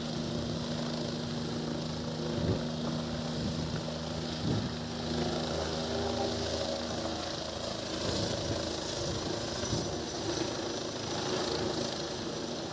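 Bell 429 twin-turbine helicopter flying low past, a steady rotor and engine noise. A low hum in it fades out about halfway through as the helicopter turns side-on and away, leaving a higher-pitched turbine and rotor noise.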